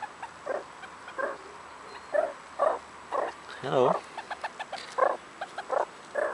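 Meerkats calling with short repeated chirps, about two a second, with a quick run of fainter ticking calls around the middle.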